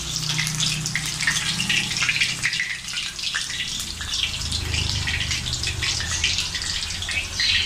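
Chicken lollipops deep-frying in hot oil in a steel kadai, the oil bubbling with a steady crackling sizzle as the pieces are lifted out on a slotted spoon to drain.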